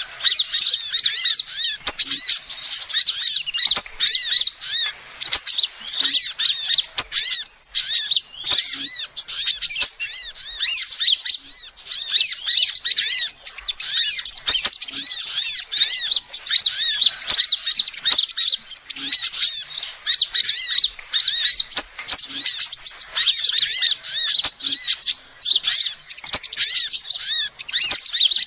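Female sunbird calling: a fast, nearly continuous run of short, high chirps, several a second, with only brief gaps.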